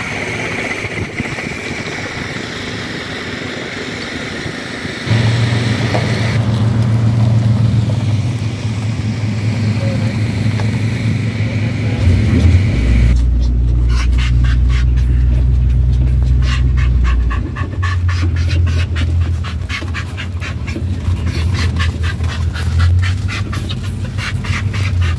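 Classic car engines running at low speed as cars pull away one after another, in several short takes; a deep, steady engine rumble is loudest through the middle.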